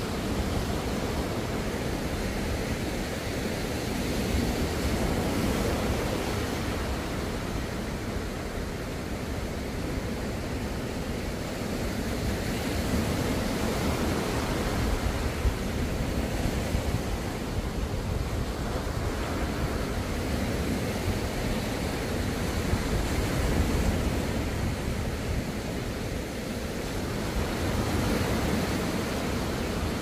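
Small ocean waves breaking on a sandy beach: a steady wash of surf that swells and eases every several seconds.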